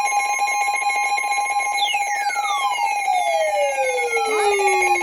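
Emergency Alert System alarm tone: a loud, steady, rapidly pulsing alert tone. From about two seconds in, a second tone glides steadily downward in pitch over it.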